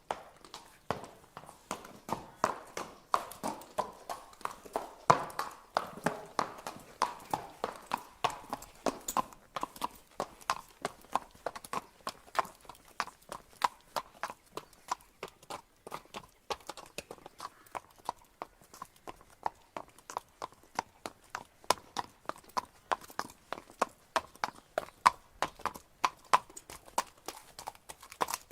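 Horse walking, its hooves striking the ground in a steady clip-clop of about three to four hoofbeats a second.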